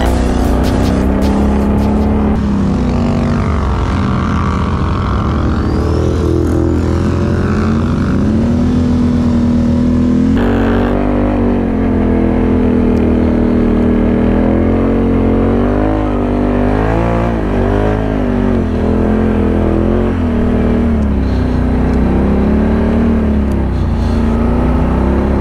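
Can-Am ATV's V-twin engine running, its pitch rising and falling repeatedly with the throttle.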